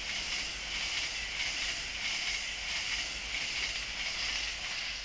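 LNER Azuma high-speed electric train passing through the station at speed. Its wheels on the rails and the air it pushes make a loud, steady rush over a low rumble, swelling slightly as the carriages go by.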